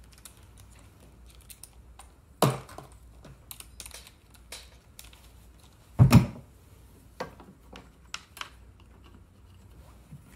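Small clicks and taps of screws and a cordless impact driver being handled, with a louder knock about two and a half seconds in and one heavy thump about six seconds in. No motor runs.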